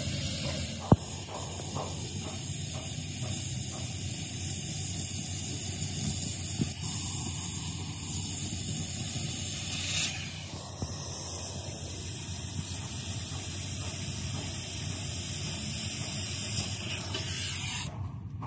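Oxy-fuel cutting torch hissing steadily as its flame cuts through a steel channel section, throwing sparks. A single sharp click comes about a second in, and the hiss drops away near the end.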